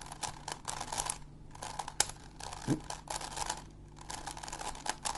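A Megaminx twisty puzzle being turned fast by hand: quick runs of plastic clicks and rasping as its faces turn, with a few sharper clacks. The turns are one last-layer corner-permutation algorithm done at speed.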